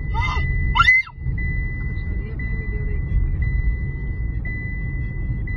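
Car cabin noise from a car on the move: a steady low rumble of engine and road, heard from inside. A child's short vocal sound comes in the first second, and the rumble drops out briefly just after.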